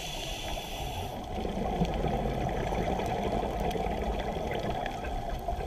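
Scuba regulator breathing heard through an underwater camera: a hissing inhalation that stops about a second in, then a longer, steady stretch of exhaled bubbles.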